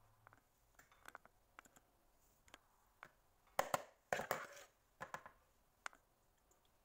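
A metal spoon clicking and scraping against a bowl while mixing raw seafood with a paste. There are scattered light clicks throughout, and a louder cluster of clicks and a short scrape about three and a half to four and a half seconds in.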